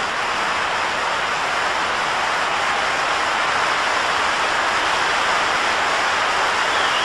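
A huge stadium crowd applauding: a steady, dense wash of clapping that swells slightly in the second half.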